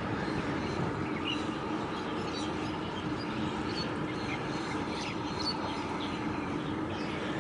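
Steady low drone and hum of a large cargo ship's engines passing close by, with small birds chirping here and there.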